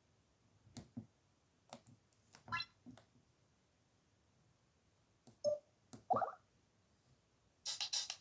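Scattered soft clicks of a Samsung SGH-Z140 mobile phone's keys being pressed, with a few brief tones between them. Near the end the phone's speaker starts playing a ringtone.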